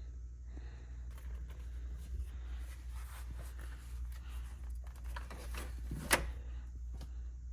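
Mini ratchet and bits being handled and worked by hand: scattered light clicks and rustles, with one sharper click about six seconds in, over a steady low hum.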